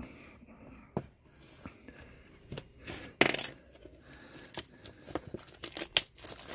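A cardboard trading-card box being handled and opened: scattered small clicks, taps and scrapes, with a louder rasping scrape about three seconds in.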